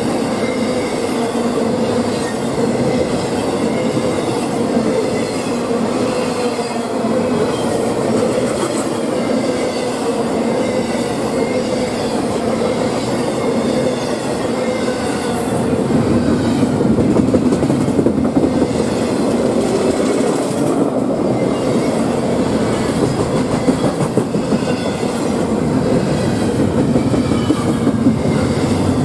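Double-stack intermodal freight train passing close by at speed: the steel wheels of the container well cars rumble and clatter steadily over the rails, getting a little louder about halfway through.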